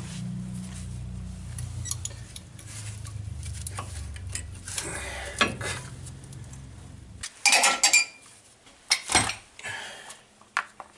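Metal clinks and taps of brake pads and their guide plates being fitted into a caliper bracket, loudest in a quick cluster about seven and a half seconds in and again around nine seconds. Under the clinks runs a low steady hum that stops suddenly about seven seconds in.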